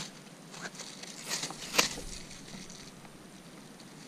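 A few light knocks and scrapes of a paddle and bare twigs against a plastic Hunter 285 fishing kayak as it is worked out of the branches, with the sharpest knock a little under two seconds in.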